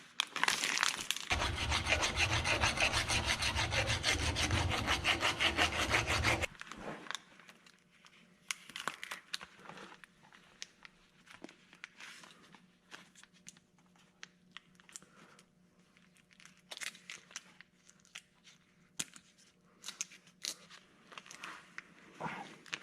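Quick, evenly repeated back-and-forth scraping strokes of a hand tool working a hard material, for about six seconds. They stop abruptly and are followed by scattered light clicks and taps of tools being handled.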